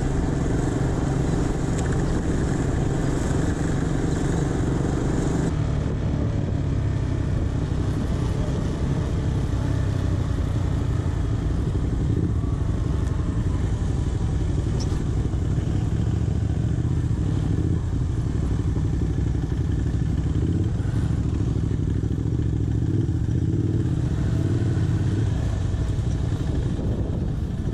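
KTM 390 Adventure's single-cylinder engine running under way, with wind rushing over the microphone. About five seconds in the wind noise falls away and the engine runs on steadily at a slower pace.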